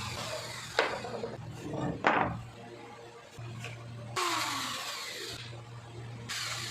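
Handheld electric marble cutter run in short bursts, its whine falling in pitch as the motor spins down, with two sharp knocks about one and two seconds in.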